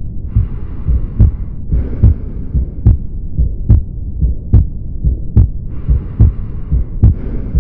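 Heartbeat heard through a stethoscope: regular low beats at roughly 70 a minute, each with a sharp click. A hiss swells and fades twice, once about a second in and again near the end.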